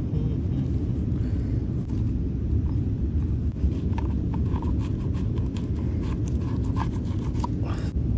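A knife scraping and cutting along a fish on a plastic cutting board, in short quick strokes that start a few seconds in, over a steady low rumble.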